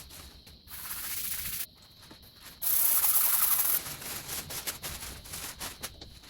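Rubbing and scraping during work on an old hand saw, with a louder hiss about three seconds in, followed by short scraping strokes.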